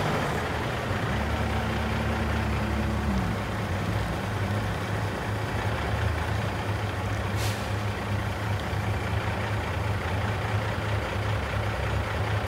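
Cummins ISX 450 diesel in an International 9400i semi tractor running at a low, steady idle. A short hiss of air from the truck's air brake system comes about seven seconds in.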